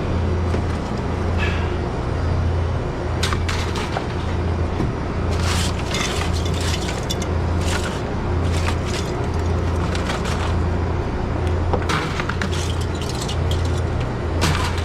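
Knocks and cracking sounds of hands working at a walk-in freezer's iced-up evaporator unit, over a low hum that swells and fades about once a second.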